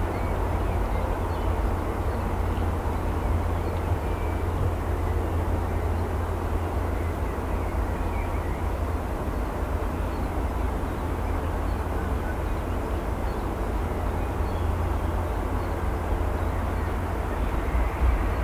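Rolls-Royce Trent XWB engines of an Airbus A350-900 at taxi idle, a steady jet rumble with a heavy low-end rumble underneath that does not change.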